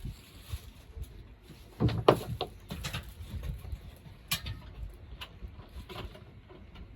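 Scattered knocks and clicks of hand work on parts and tools, with a small cluster of knocks about two seconds in and a sharp click a little after four seconds.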